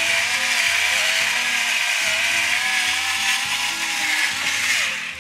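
Electric pepper grinder running continuously as it grinds black peppercorns, with a slightly wavering motor whine, then cutting off suddenly near the end.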